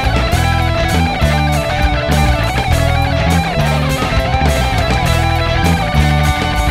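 Rock band playing live: distorted electric guitars over bass and steady drums, with a lead line that bends up and down in a repeating figure.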